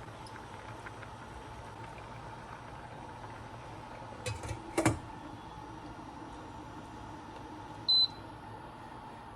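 A steady electrical appliance hum, with two sharp clicks a little before halfway and a single short, high-pitched beep near the end.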